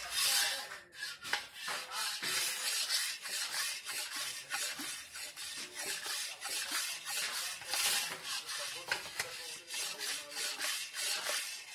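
Metal spoon scraping round a metal kadai while beating thick gram-flour batter: a repeated run of scraping, sloshing strokes against the pan.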